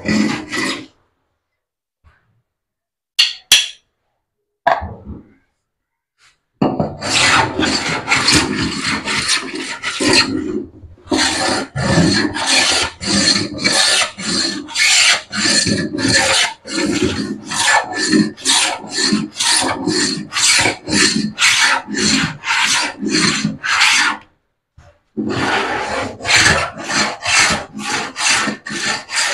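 Hand tool worked back and forth on a white laminated wooden board, a rasping, saw-like cut at about two strokes a second. A few short scrapes come first, the steady strokes start about seven seconds in, and they pause briefly twice.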